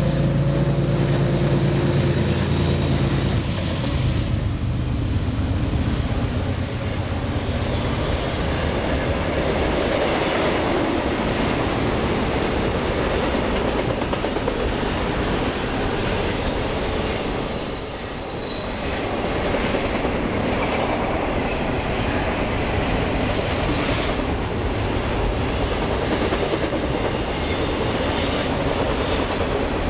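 Norfolk Southern double-stack intermodal train passing close by. For the first few seconds the lead GE ES40DC locomotive's diesel engine hums loudly; after that the stack cars keep up a steady rolling rumble and clatter of wheels on rail.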